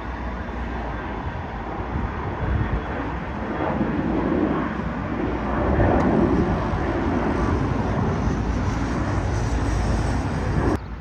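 Business jet's engines at takeoff power as it climbs out: a continuous jet rumble that swells to its loudest about six seconds in, with a wavering, phasing tone as it passes. It cuts off suddenly near the end.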